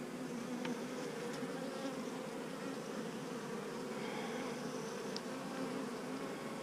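Many honeybees buzzing together in a steady, low-pitched hum.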